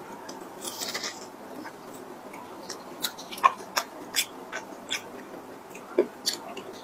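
Crisp crackling and crunching of a crispy-shell cream puff being bitten, chewed and pulled apart by hand: a string of short, sharp crackles, with a brief crunchy rustle about a second in.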